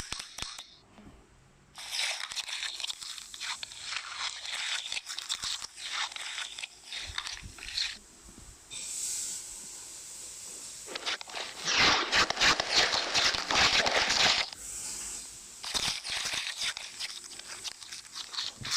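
Slime being squished and worked by hand, making crackling, crunchy pops in bursts, loudest from about twelve to fourteen seconds in.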